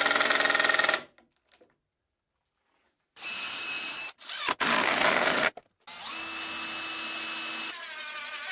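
Cordless impact driver rattling as it drives a screw into plywood, stopping about a second in. After a short pause, a cordless drill runs in several short bursts with a thin, steady whine as it bores into the plywood gantry side.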